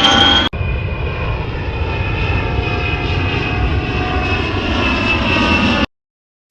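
Airplane engine drone: a steady rumble with a high whine over it. It jumps abruptly to a similar, slightly lower drone about half a second in, and cuts off suddenly about a second before the end.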